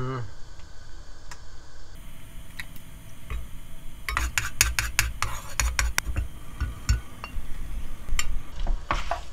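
A wooden spoon scrapes and taps against a nonstick wok as it spreads cooking oil around the pan, with a run of clicks in the middle. Near the end a louder knock comes as the wok is lifted and tilted over the gas burner to swirl the oil.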